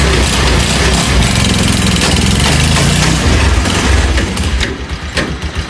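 Three-wheeled motorcycle's engine running loudly under way on a test ride, with a loud exhaust; the ride is meant to bring out an abnormal noise the tricycle makes only in third gear. The engine sound eases off about four and a half seconds in.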